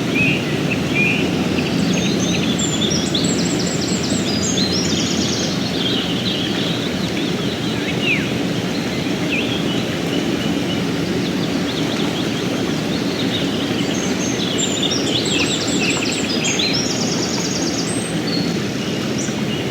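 Mountain stream running with a steady rush of water, while songbirds sing rapid chirping, trilling phrases in two bursts: one a couple of seconds in and another about two-thirds of the way through.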